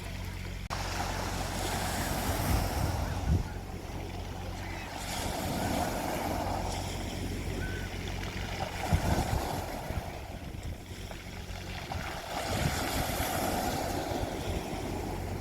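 Sea waves breaking and washing on a beach, the surf swelling four times a few seconds apart. A steady low hum runs underneath, with a few low thumps about 3 seconds and 9 seconds in.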